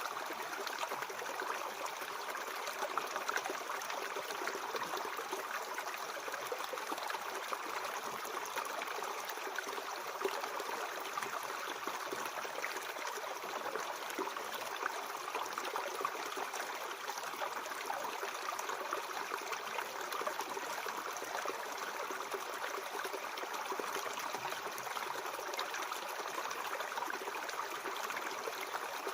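Mountain stream flowing over stones, a steady babbling and trickling of water.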